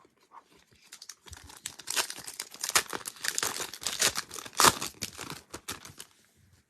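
Wrapper of a football trading card pack being torn open and crinkled by hand, a dense run of crackling and rustling lasting several seconds.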